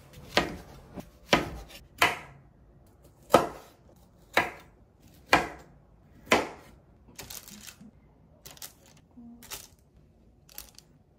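Kitchen knife slicing onion and Brussels sprouts on a wooden cutting board: a sharp knock of the blade on the board roughly once a second. From about seven seconds in, softer small taps and rustles follow as the sprout halves are set onto a parchment-lined baking tray.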